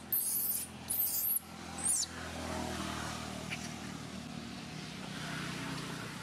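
Baby long-tailed macaque crying: three shrill squeals in the first two seconds, the last a short sliding cry. A low steady rumble follows.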